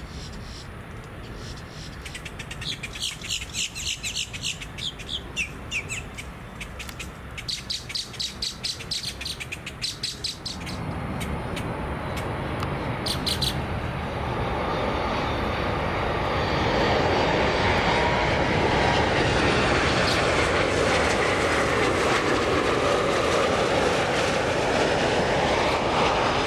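A small bird chirps in quick repeated bursts for the first several seconds. From about ten seconds in, a jet airliner's engine noise comes in and grows louder, then holds steady and loud through the second half with a slowly shifting whine.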